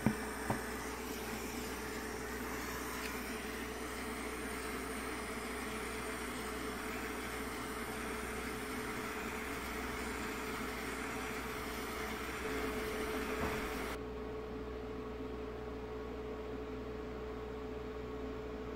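Steady hiss of a butane hot-air soldering tool blowing on circuit-board pads to soften the solder and free an old LCD ribbon cable. The hiss cuts off suddenly about fourteen seconds in, leaving a faint steady hum.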